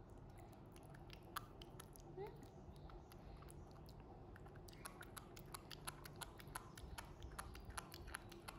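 Faint wet clicks and smacks of a baby monkey chewing and smacking its lips on a mouthful of porridge, coming quicker from about halfway through.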